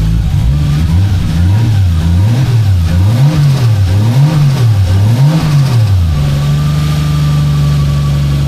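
1JZ-GTE 2.5-litre turbocharged straight-six engine revved up and down about once a second five times, then held steady at a slightly raised speed. It runs cleanly, a lot better than before now that a new VVT-i oil control valve solenoid is fitted.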